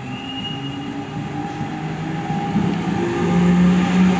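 SBB electric locomotive passing close, its traction motors humming with a pitch that climbs slightly and gets steadily louder, over rail and wheel noise. A brief thin squeal comes right at the start.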